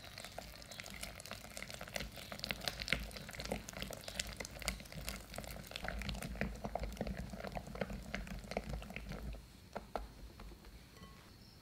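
Wire balloon whisk beating thick cheesecake batter in a glass bowl by hand: quick wet squelching with rapid clicks of the wires against the glass. It stops shortly before the end.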